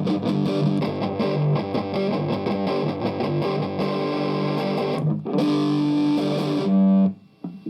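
Electric guitar played with distortion through a Marshall 50-watt guitar amp: a fast run of picked notes, a short break about five seconds in, then held notes that cut off about seven seconds in.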